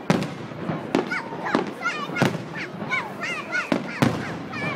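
Fireworks display: sharp bangs of shells bursting, roughly one every half-second to a second, with short high-pitched chirps in between.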